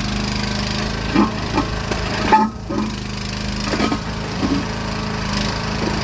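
Mini backhoe's engine running steadily, with a series of irregular knocks and clatters from the machine at work; the loudest comes a little over two seconds in.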